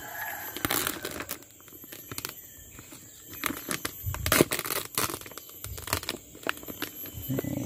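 Plastic sheet and aluminium foil covering a stingless-bee (Trigona) hive box crinkling and crackling as they are handled and held back, in irregular sharp crackles with a louder burst about four seconds in.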